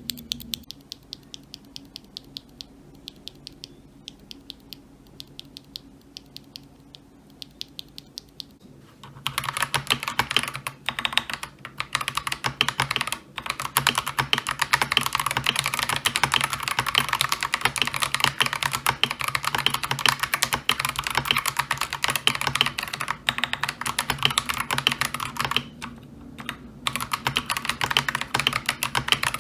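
Mechanical keyboard with Akko Lavender Purple tactile switches: single keys pressed one at a time, separate clicks, then from about nine seconds in, continuous fast typing on the stock switches of an Akko 3098B, with a couple of short pauses.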